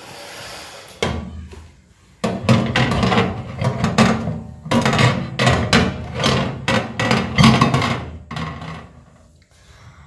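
Glass microwave turntable plate knocking and clattering against the metal oven cavity as it is fitted back into place: a run of irregular knocks from about two seconds in, stopping near the end.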